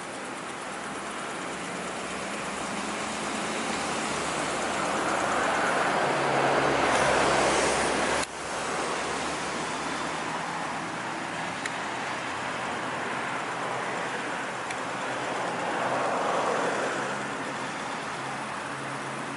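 A large intercity coach driving past on the road, its diesel engine and tyre noise rising to a peak and then fading. The sound breaks off sharply about eight seconds in, and a second pass of the coach swells and fades near the end.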